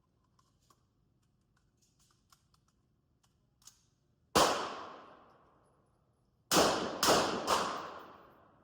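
Gunshots echoing in an indoor shooting range: a single shot, then about two seconds later three shots in quick succession about half a second apart, each leaving a long reverberant tail. Faint small clicks of gun handling come before the first shot.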